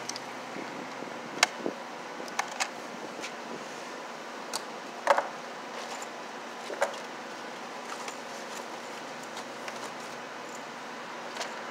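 Scattered sharp clicks and clinks of small hard objects being handled, irregular and a few seconds apart, the loudest about a second and a half and about five seconds in, over steady background noise.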